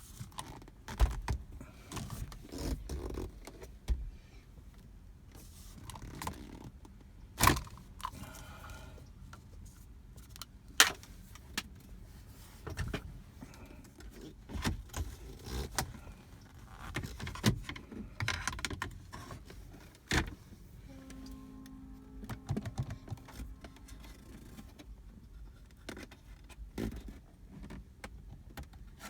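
Irregular clicks, knocks and plastic rattles of hands working at a Volvo S60's gear shifter and console trim to release the shift lock from park. A short steady hum comes in about 21 seconds in.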